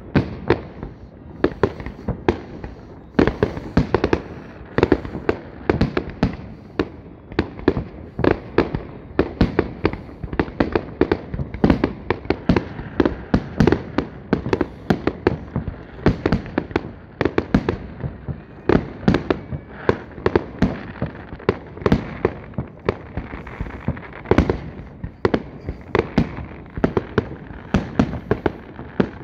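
Aerial firework shells bursting in quick succession: a dense, unbroken string of sharp bangs, several a second.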